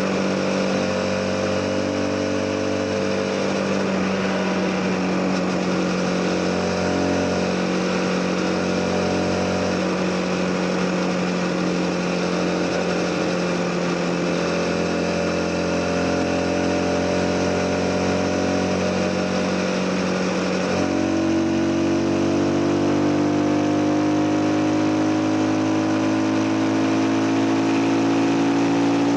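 CFMoto 250NK motorcycle's single-cylinder engine running at a steady cruising speed. About two-thirds of the way through, its pitch steps up suddenly and then climbs gradually as the bike accelerates.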